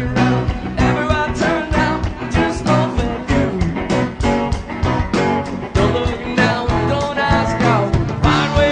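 Background music: a song with guitar and singing over a steady beat.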